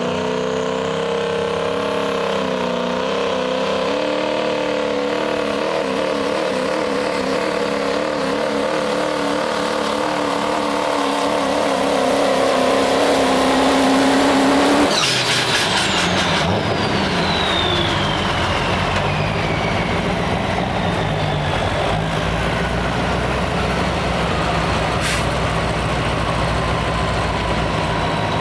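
Turbocharged diesel pickup engine at full throttle pulling a sled, its pitch wavering and rising in level as the truck digs down the track. About halfway through the engine is cut back sharply to a low rumble, and the turbocharger whistles down in a long falling whine.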